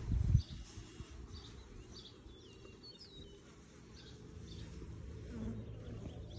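A fly buzzing close by, over faint bird chirps. A brief low thump comes right at the start and is the loudest sound.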